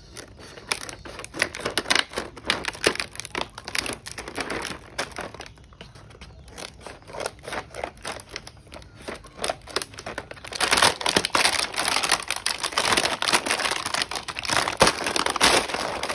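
Scissors cutting through a plastic blister pack and its card backing, with the clear plastic film crackling and crinkling. The crinkling gets louder and denser about two-thirds of the way in.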